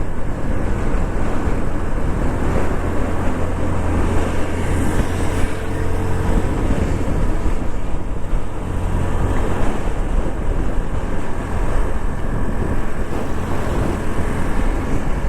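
Motorcycle riding along with its engine running steadily under a constant rush of wind and road noise on a clip-on lapel microphone.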